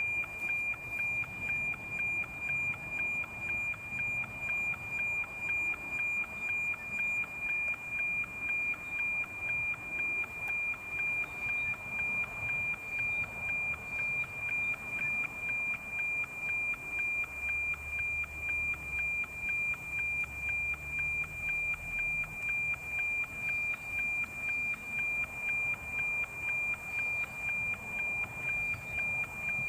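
NOAA 19 weather satellite's APT image signal, picked up by an RTL-SDR and played as FM audio: a steady high tone that pulses in an even tick-tock about twice a second, once per image line, over a light static hiss.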